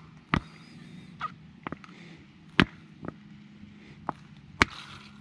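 Plastic bottle of tubeless sealant squeezed onto a tire's open valve stem to inject sealant: sharp, irregular clicks and pops, about seven in five seconds, over a faint steady hum.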